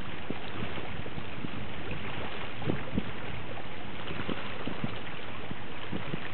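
Steady rushing noise of wind and water at sea, with scattered low thumps of wind buffeting the microphone.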